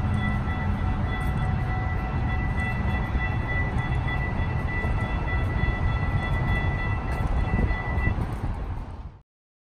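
Ride inside a moving train carriage: steady rumble of the running gear with a constant high electric whine. The whine stops about eight seconds in and the sound fades out a second later.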